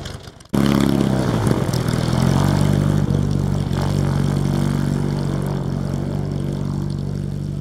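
Royal Aircraft Factory S.E.5a biplane's piston engine and propeller, coming in suddenly about half a second in, revving up and then running steadily as the aircraft rolls away across the grass, slowly getting quieter.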